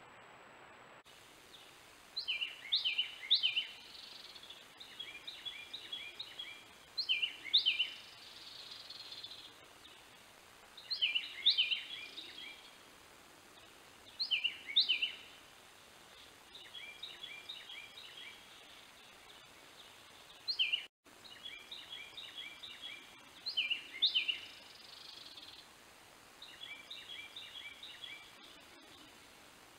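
A songbird singing: a loud phrase of quick downward-slurred notes about every four seconds, with softer runs of rapidly repeated notes between phrases, over steady hiss.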